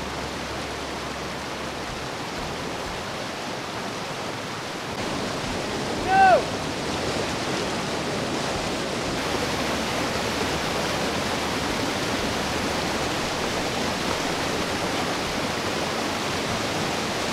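Fast rocky creek rushing over rapids: a steady whitewater rush. About six seconds in, a brief high-pitched call cuts through, the loudest moment.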